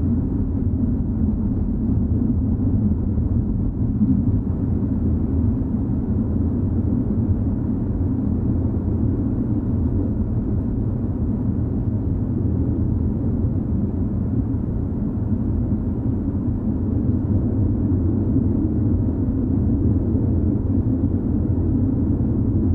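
Steady low rumbling drone of a horror ambience sound effect, dark and unchanging, with no sudden hits.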